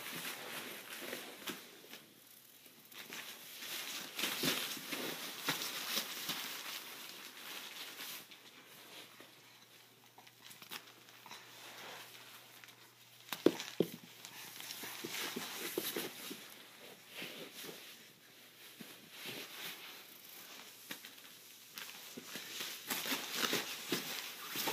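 Nylon play-tent fabric rustling and crinkling as a toddler crawls through it, in uneven bursts. A sharp knock about thirteen and a half seconds in is the loudest sound.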